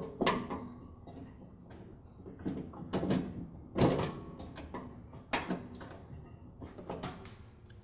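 Hands working a rubber drive belt around a lawn tractor's pulleys: irregular scraping and rubbing strokes, the loudest about four seconds in.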